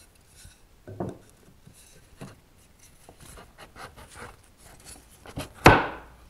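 Wooden tenon on a stool apron pushed into a snug mortise in the leg for a test fit. A knock about a second in, a run of small rubbing and scraping sounds as the tenon slides in, then one sharp wooden knock near the end, the loudest sound, as it seats.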